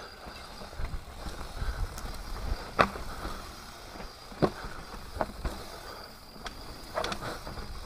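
Mountain bike descending a dirt forest trail: a low rumble of the tyres rolling over the ground, broken by several sharp clatters and knocks as the bike jolts over bumps, the loudest a little under three seconds in.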